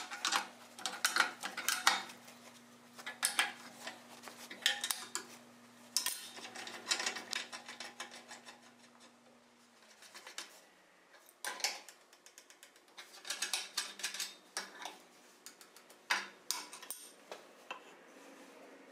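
Irregular metallic clinks and clatter of an adjustable wrench and a threaded tailstock screw being worked on a steel lathe frame, as wooden spoke pieces are clamped in place. A faint low hum stops about halfway through.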